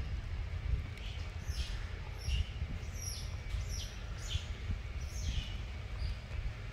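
A bird chirping repeatedly, short falling chirps a little under a second apart, fainter near the end, over a steady low rumble.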